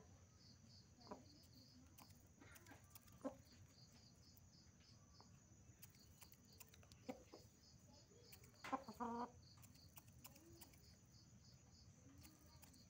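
Indian Aseel chickens clucking: a few short, scattered clucks, with the loudest cluster about nine seconds in.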